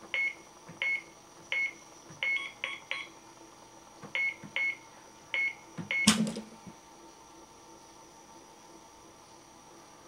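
Keypad safe beeping with each button press, about ten short identical beeps over six seconds, then a loud clack about six seconds in as the latch releases and the door springs open.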